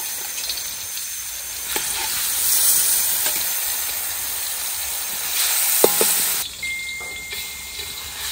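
Pieces of tongkol tuna frying in hot oil in a stainless steel wok: a steady sizzling hiss that swells louder twice as more pieces go into the oil, with a few light knocks.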